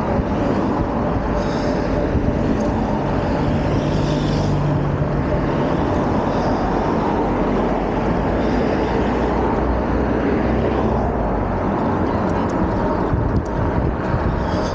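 Steady wind noise on the microphone and road rumble while riding a Super73-Z1 electric bike along a road.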